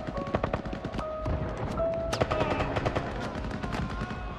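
Machine-gun and rifle fire crackling in dense, irregular volleys of shots, over a film score of held musical notes.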